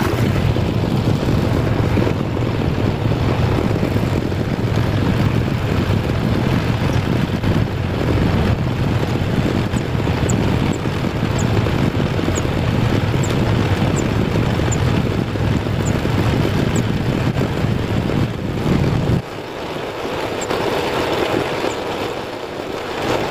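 Diesel engine running with a steady low drone; the drone drops away abruptly about nineteen seconds in, leaving a quieter hiss.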